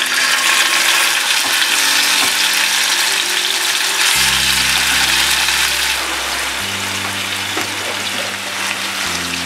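Chunks of chilli-marinated seer fish sizzling steadily as they shallow-fry in hot oil. Soft background music holds long low notes underneath, changing chord every couple of seconds.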